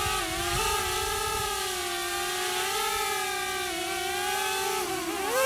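Small quadcopter drone's propellers buzzing in a steady hum that wavers a little in pitch, dipping and then rising near the end.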